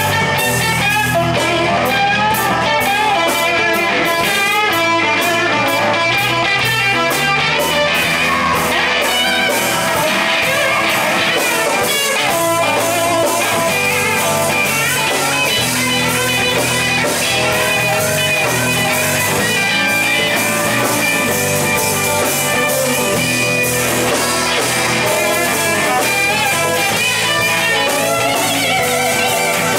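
Live band music: a Telecaster-style electric guitar and an acoustic guitar playing over drums in a blues-rock song.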